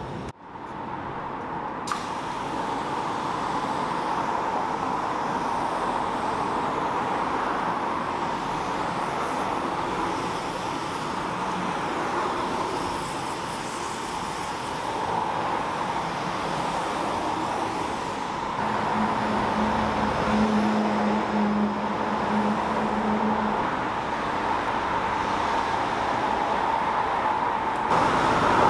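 Hand-pumped iK pressure sprayer hissing steadily as it sprays foam onto a car's body panels, with a brief low hum joining for a few seconds in the second half.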